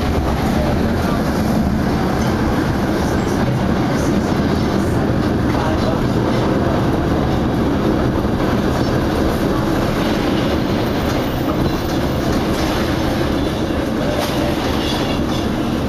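Vintage electric streetcar running along its rails, heard from inside the car: a steady running noise of wheels and motors with a few faint clicks.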